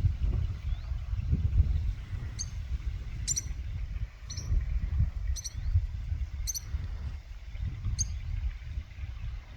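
A small bird chirping: about six short, high chirps spaced a second or so apart, over a steady low rumble of wind on the microphone.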